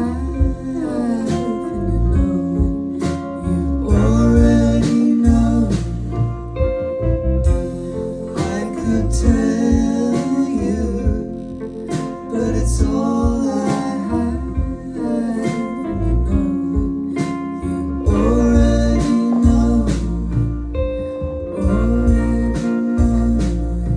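Live indie band playing a song: a sung vocal over guitar, bass and drums.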